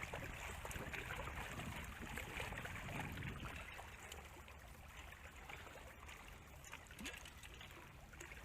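Faint shallow water trickling and lapping among shoreline rocks, an even wash without distinct splashes, a little louder over the first few seconds.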